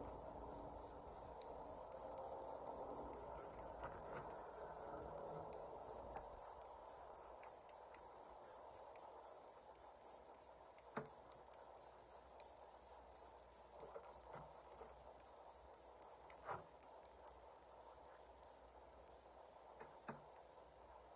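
Near silence: faint outdoor room tone with a few soft clicks and taps spread through it.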